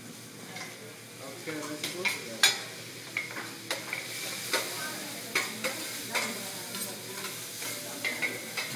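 Vegetables sizzling on a hibachi steel griddle, with irregular sharp metal clacks of the chef's utensils scraping and striking the griddle as he stirs them. The loudest clack comes about two and a half seconds in.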